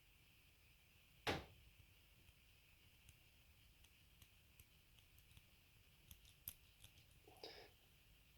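Faint metallic clicks and ticks of a lock pick and brake tensioner working the lever tumblers of an antique Miller Champion pancake padlock, with one sharper click about a second in and a short scrape near the end.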